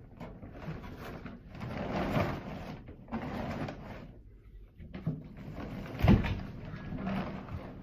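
An empty 40-gallon water heater wrapped in a tarp being hauled up stairs: several scraping, sliding pulls, and a sharp thump about six seconds in as it knocks onto a step.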